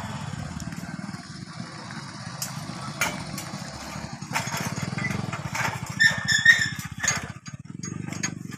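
Small 5 HP single-cylinder engine of a walk-behind power weeder running steadily, with scattered knocks and clanks as the machine is swung round on its iron cage wheels. The engine note dips briefly near the end.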